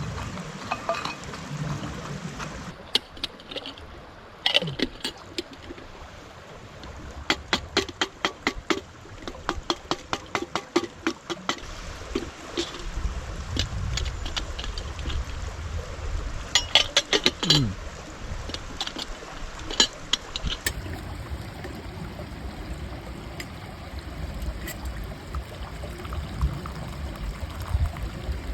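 A small stream running steadily, with two runs of quick sharp clicks and knocks over it, one about a quarter of the way in and one past the middle.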